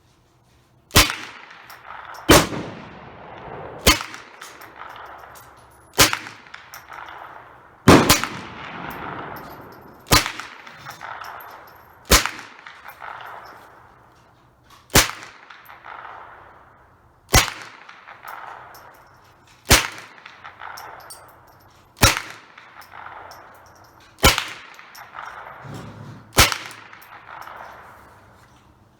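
Rifle shots fired one at a time, about every two seconds, thirteen in all, each followed by a long fading echo.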